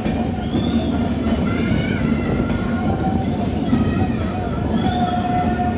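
Train running on the rails with a steady rumble, and high, wavering wheel squeal that comes and goes over it.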